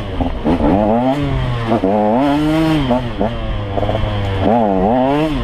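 Dirt bike engine under load on a trail, its revs rising and falling several times with the throttle.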